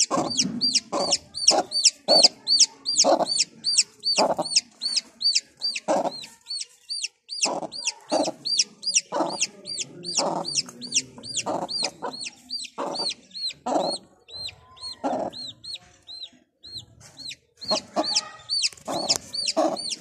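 A silkie chick peeping rapidly, several high, arched chirps a second, over a silkie hen's low clucking about once a second. The peeping thins out for a few seconds past the middle and picks up again near the end.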